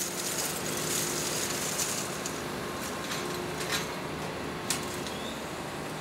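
Heavy machinery running with a steady hum and a faint held tone, broken by a few sharp clicks.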